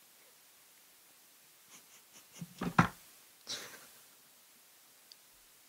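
A woman's stifled, wordless laugh: a few soft puffs, then a short cluster of louder breath bursts near the middle and a breathy exhale about a second later, in a quiet small room.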